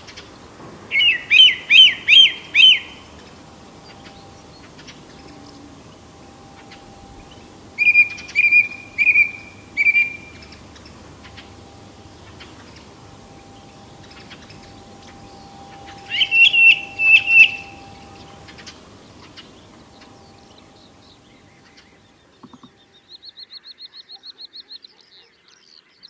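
Song thrush singing three loud phrases, each one note repeated several times in quick succession, with pauses of several seconds between them; these are the classic phrases rendered in Russian folk words as "приди-приди-приди" and "Спиридон-Спиридон". Near the end, a quieter, faster run of short high notes from another bird.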